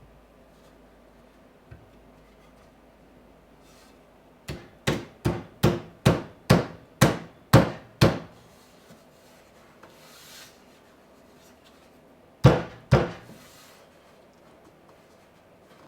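Hammer blows on a cedar bench frame: a quick run of about eleven sharp knocks, about three a second, then two more near the end, tapping a glued leg into place.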